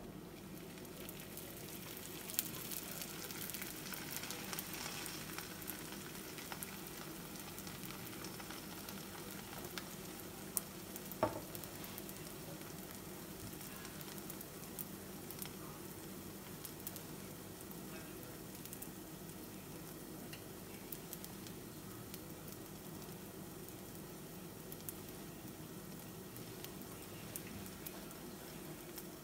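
Naan dough sizzling steadily in a hot, lightly oiled non-stick frying pan, with scattered small crackles as it cooks and bubbles up. A few sharper clicks stand out, one a couple of seconds in and two about ten to eleven seconds in.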